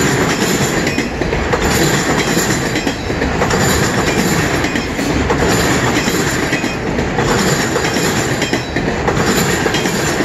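Freight cars of a CN mixed freight train rolling past, with steel wheels running on the rails. The steady rumble swells and eases about every two seconds.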